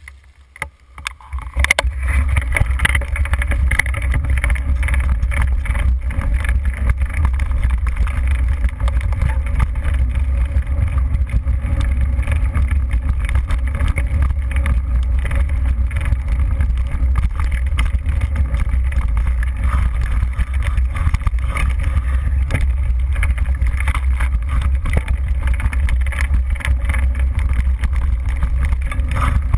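Wind buffeting a GoPro HD camera's microphone on a moving mountain bike, a loud steady rumble with rattling from the bike over rough trail; it starts abruptly a couple of seconds in after a quieter moment.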